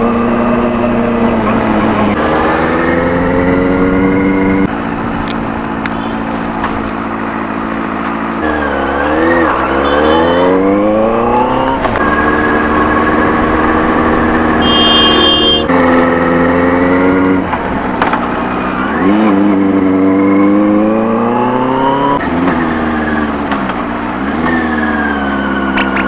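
Benelli 600i motorcycle's inline-four engine pulling up a winding hill road. Its note holds steady for stretches, then drops and climbs again three times as the bike slows for bends and accelerates out of them.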